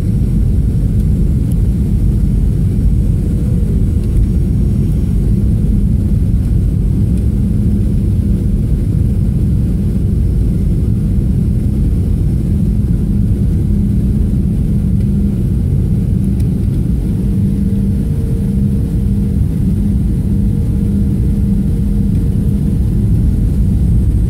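Steady cabin rumble of a Boeing 737-700 on final approach, with its CFM56-7B engines giving a steady low hum.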